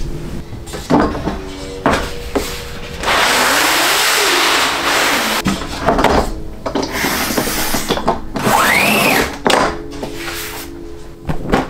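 Cutting head of a long rail-mounted straight-edge cutter pushed along its track, slicing through a sheet of bookcloth: two long stretches of steady scraping noise with a few knocks, and a short squeak that rises and falls in pitch near the end.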